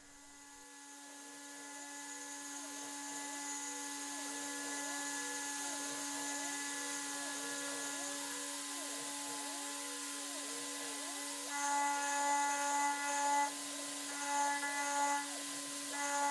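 CNC spindle running a single-flute end mill with a steady whine that swells over the first few seconds. In the last third, the cutter bites into 2 mm 6082 aluminium plate in four short bursts of higher-pitched cutting noise.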